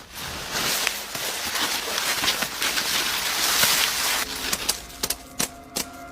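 Racer snakes and a baby iguana scrambling over loose stones and sand: a dense scraping rustle full of rapid small clicks, loudest about three and a half seconds in, thinning to scattered clicks after about four seconds.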